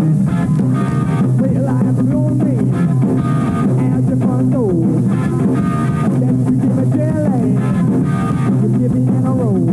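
Rock music on electric guitar over a steady bass line, with a guitar note sliding down in pitch about every two and a half seconds.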